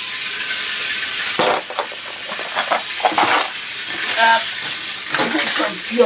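Hornby Dublo Bo-Bo diesel model locomotive running round three-rail track with a steady rattling hiss, broken by a few short clatters of model railway pieces being picked up and handled.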